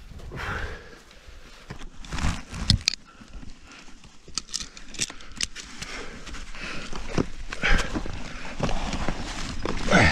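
Irregular knocks and scrapes of hands, boots and gear against snow-covered rock as a climber scrambles up a snowy via ferrata.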